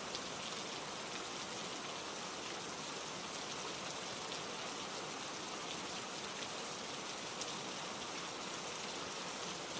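Steady rainfall, an even hiss of rain on a surface with faint scattered drop ticks.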